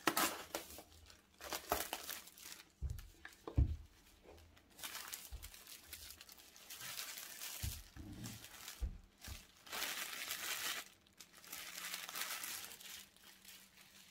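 Clear plastic film wrap being torn and peeled off a cardboard tablet box and crumpled in the hands, in repeated bursts of crinkling. A few low knocks come from the box being handled.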